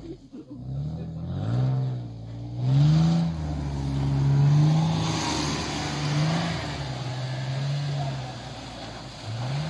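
Off-road 4x4's engine revving hard again and again as it pushes through deep snow, its pitch climbing and falling every second or two, with a hiss in the middle.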